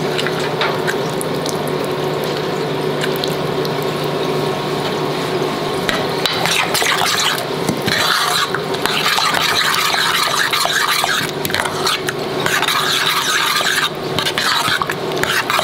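A spoon stirring thick lentil dal in a stainless steel saucepan: wet, scraping stirring that gets busier about six seconds in, over a steady hum.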